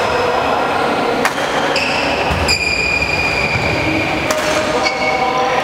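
Steady din of a busy badminton hall, with a few sharp knocks and several high squeaks, one drawn out for nearly two seconds midway.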